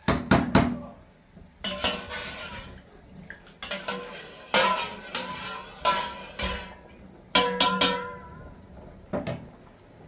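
Metal pots and utensils clanking and clattering: about a dozen sharp knocks at uneven intervals, several leaving a short metallic ring, with a brief scrape about two seconds in.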